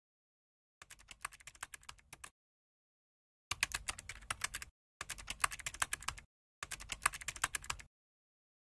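Computer keyboard typing sound effect: four runs of rapid key clicks, each a second or so long, the first one softer.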